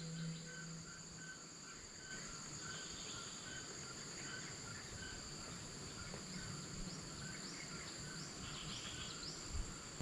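Forest insects: a steady high-pitched drone with a regular pulsing chirp, about three pulses every two seconds. A few short, high, rising chirps are heard in the second half.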